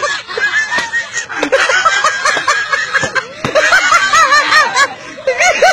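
Several people laughing hard in quick, repeated bursts, with a few sharp knocks in between.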